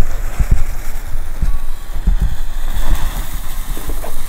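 Heavy wind rumble and buffeting on the microphone over the fizzing fuse and then the hissing spray of a small Nico 'green fire' ground fountain firework, which is spraying sparks near the end.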